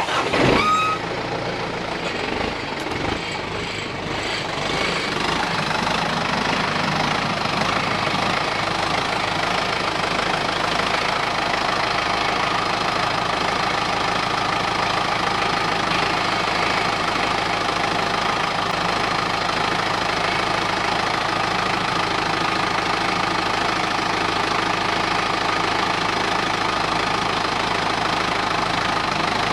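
An engine starting up and then running steadily at idle, with a sharp burst right at the start and an even, unchanging note after that.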